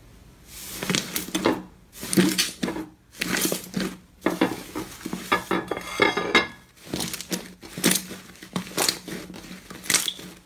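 Hands pressing and kneading purple slime, making short squishing bursts about two a second.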